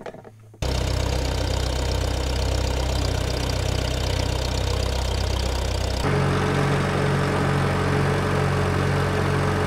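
Tractor engine running steadily after its oil change, its low end pulsing evenly. It starts suddenly under a second in and changes abruptly in tone about six seconds in.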